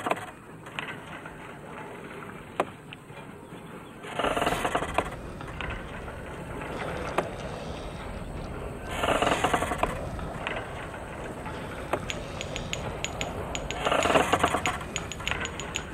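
Old oil-well pumping gear creaking in a slow rhythm, about one long creak every five seconds, with a few sharp clicks between the creaks.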